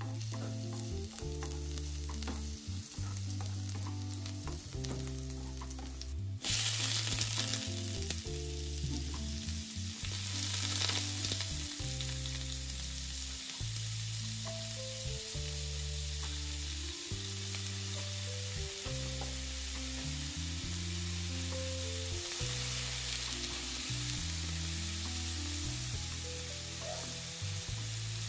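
Minced garlic sizzling in hot oil in a frying pan, stirred with a plastic spatula. About six seconds in the sizzle jumps suddenly louder and brighter as shrimp and squid go into the hot pan, then keeps frying steadily while they are stir-fried. Soft background music with low held notes plays underneath.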